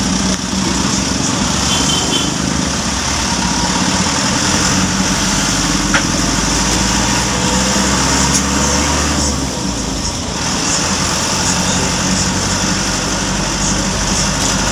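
Car engine running and tyre noise while driving slowly along a city street, steady throughout, with a steady high hiss over it. A brief high double beep sounds about two seconds in.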